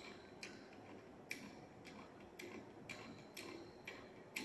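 Faint, light metallic clicks at roughly two a second, uneven, from a chuck key being turned in a lathe's three-jaw chuck to tighten the jaws on the workpiece. The loudest click comes at the very end.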